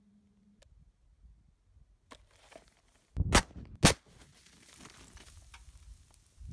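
Two loud sharp bangs about half a second apart as a soda bottle is hit by a shot from a Pietta 1873 single-action revolver in .45 Colt and bursts, followed by a fizzing hiss of the soda spraying out that fades.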